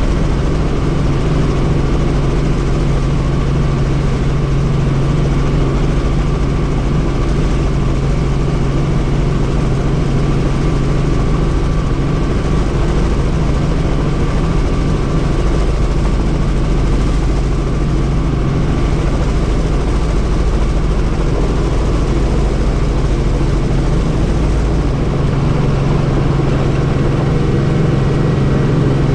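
Helicopter in flight, its rotor and engine making a loud, steady drone with a strong low hum; near the end the deepest rumble eases a little while the hum strengthens.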